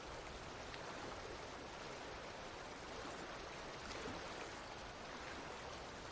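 Faint, steady water noise, an even hiss without breaks or distinct drops.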